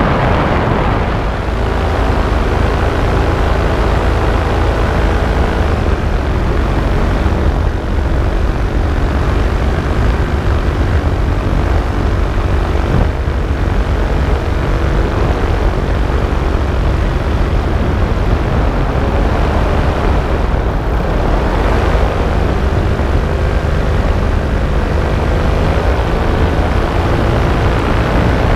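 Paramotor engine and propeller running steadily in flight, with heavy wind rumble on the microphone.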